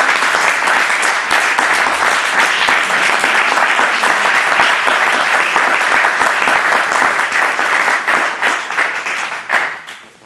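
Audience applauding: dense, steady clapping that thins out and stops near the end.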